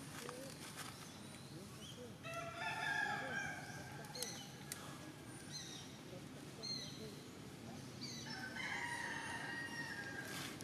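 Two long, drawn-out animal calls about six seconds apart, each lasting around a second and a half and holding a steady pitch before dropping away, with a few faint high chirps between them.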